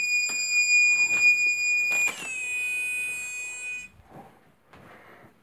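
Electronic piezo alarm sounding a steady high-pitched tone for about two seconds, then switching to a slightly lower, buzzier tone for nearly two seconds more before cutting off. It is typical of a ghost-hunting antenna sensor pod going off. A few light knocks sound along with it.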